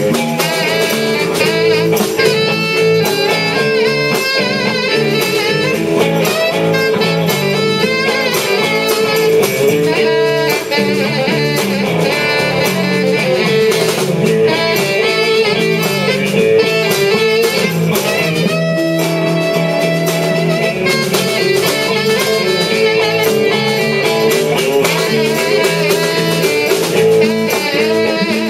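Live blues-rock band playing an instrumental passage: an electric guitar lead with bending, wavering notes over electric bass and drums.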